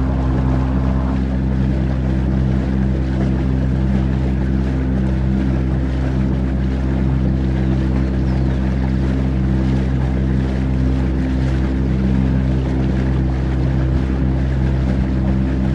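A boat's motor running at a steady cruising speed, an even drone that holds one pitch, with the rush of water and wind against the hull and the microphone.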